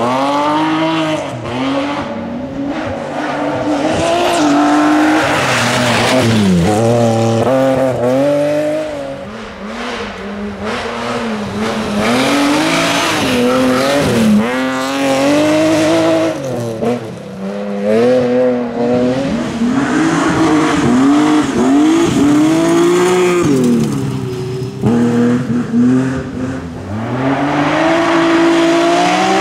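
BMW M3 E36 rally cars' straight-six engines revving hard as they pass one after another on a gravel stage. The pitch repeatedly climbs through the gears and drops away on lifts and shifts.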